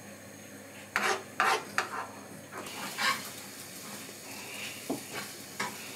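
Metal spoon scraping and stirring eggs in a non-stick frying pan: about six short scrapes a second or so apart, over a faint steady sizzle of the cooking eggs.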